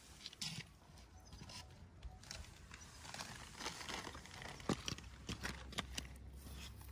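Faint, irregular scuffs and clicks of someone moving about and handling bare rock, with one sharper tap a little after halfway.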